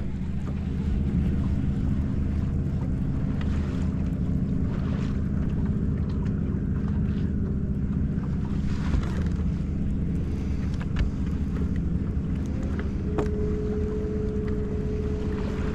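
A boat's motor runs steadily with a low hum, and wind brushes the microphone. Near the end a steady higher tone joins the hum.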